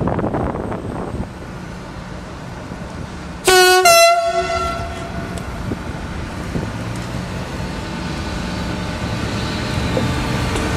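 Train horn giving one short two-note blast, a low note then a higher one, about three and a half seconds in, the higher note ringing on briefly afterwards. A steady low engine hum runs underneath.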